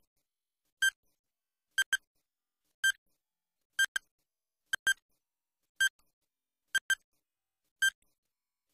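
Countdown timer sound effect: a short electronic beep about once a second, some of the beeps doubled, with silence between them.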